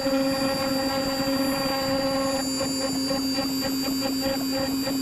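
CNC router spindle running with a steady whine while its V-bit carves a pattern into an oak board. From about halfway a rapid, uneven rasping from the bit cutting the wood joins in.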